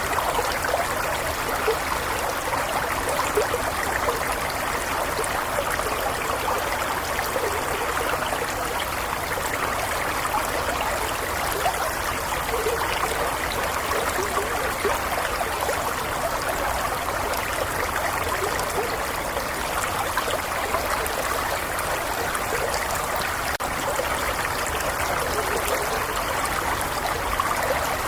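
Small stream flowing steadily over stones, a continuous babbling and trickling of water with no breaks.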